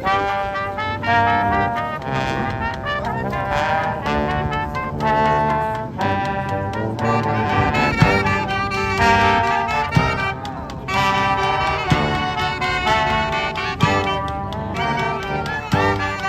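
A brass band playing live: trumpets and trombones in full ensemble over a steady drum beat.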